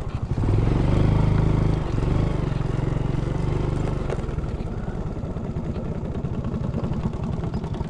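Small automatic scooter's engine running under throttle on a muddy dirt track, loud at first, then easing off about two seconds in to a lower, steady pulsing run as the scooter slows.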